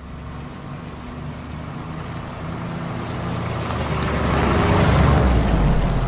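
Machine sound effect: a steady low mechanical hum and rumble that swells louder, peaking about five seconds in, then eases off.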